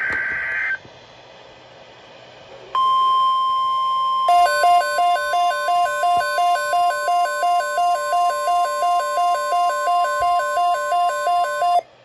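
Midland weather alert radio sounding a NOAA Weather Radio alert. A short digital data burst ends at the start. About three seconds in, a steady alarm tone begins, and about a second later a warbling two-note alert siren, cycling about three times a second, sounds over it. Both cut off together just before the end. The sequence marks an incoming severe weather alert.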